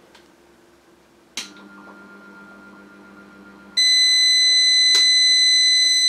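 A switch clicks and a low hum sounds for about two seconds as a 150 W DC-to-AC inverter tries to start a 1300 W vacuum cleaner. Then the inverter's overload alarm sounds suddenly as a loud, continuous high-pitched tone, the sign that the inverter has cut out under a load far beyond its rating. A sharp click comes about a second after the alarm starts.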